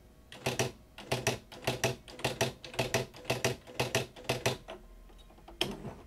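Electronic daisy wheel typewriter printing a word with automatic underlining on, about ten rapid double strikes, one pair per letter as the wheel prints each character and its underline. A single strike follows near the end.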